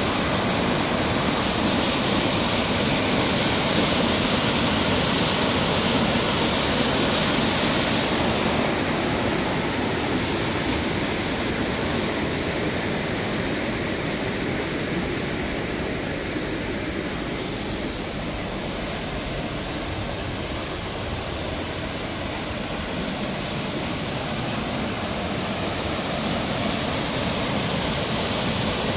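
Rushing water of a mountain stream and waterfall cascading over rocks: a steady roar that eases a little through the middle and swells again near the end.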